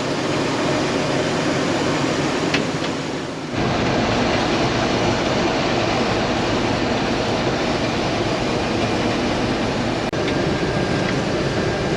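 Old International Harvester Axial-Flow combine running steadily while harvesting. A heavier, deeper rumble comes in about three and a half seconds in and holds steady.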